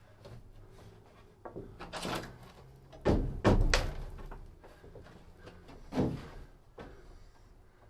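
Wooden knocks and thuds as a 2x4 brace is knocked and shifted into place under a motorhome roof: a few separate impacts, the loudest cluster of three about three to four seconds in and another single knock about six seconds in.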